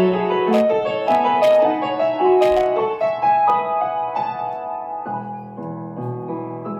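Solo piano music: a melody over held chords, growing quieter toward the end.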